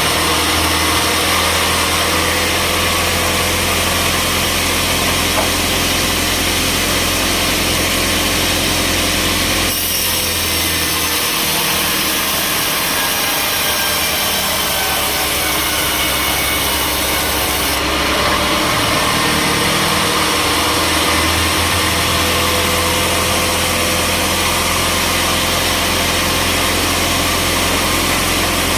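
Sawmill saw cutting through timber, with a steady engine hum underneath. The hissing cutting noise gets stronger about ten seconds in and eases back about eight seconds later.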